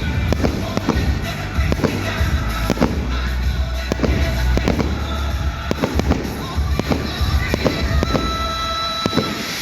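Fireworks display: many shells bursting and crackling in quick, irregular succession over accompanying music with a heavy bass.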